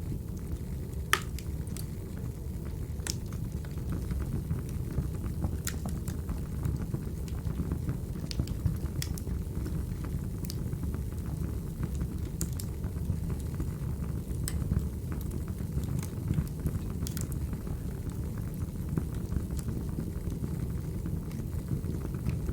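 Recorded wood fire burning: a steady low rumble with sharp crackles and pops at irregular intervals, about one every second or two.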